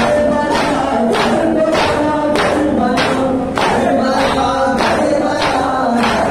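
A noha, the Shia Muharram lament, sung by a male reciter through a microphone, with a crowd of men and boys chanting along in chorus. Under it runs a steady beat of matam, hands striking chests, about two strikes a second.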